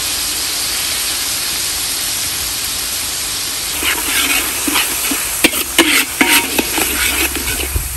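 Chili-and-onion paste with thick soy sauce sizzling in a hot metal wok, an even hiss. From about four seconds in a metal spatula stirs it, scraping and clicking irregularly against the wok.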